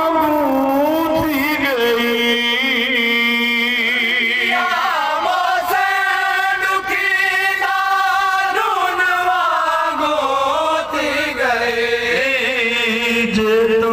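A man chanting a noha, a Shia mourning lament, through a microphone and horn loudspeakers. It is sung by one male voice in long, wavering, ornamented notes.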